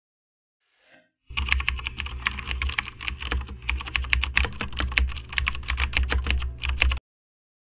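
Computer keyboard typing sound effect: a rapid run of key clicks over a low hum, laid under title text that types itself out on screen. It starts about a second in, the clicks grow sharper about halfway through, and it cuts off suddenly near the end.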